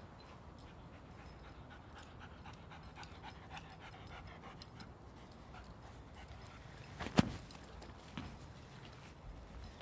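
A dog moving about on grass, with faint small clicks and jingles from the dog and its collar. About seven seconds in there is one sharp, short knock, the loudest sound here, and a weaker one about a second later.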